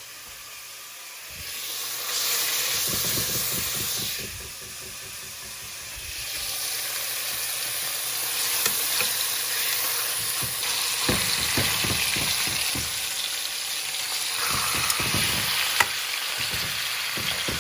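Chicken pieces sizzling as they are fried in hot oil and spices in a pan, growing louder about two seconds in, with short knocks from a utensil stirring them.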